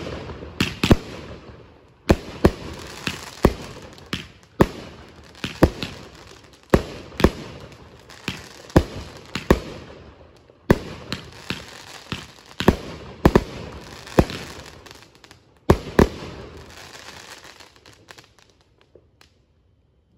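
Grand Patriot 'Klepto' 500-gram, 19-shot consumer fireworks cake firing: a rapid run of sharp bangs, one every half second to second, each trailing off in an echo. The shots stop about sixteen seconds in and the last sound fades out.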